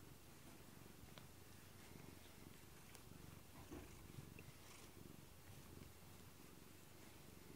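Domestic cat purring softly and steadily while being brushed with a rubber grooming brush, with a few faint clicks.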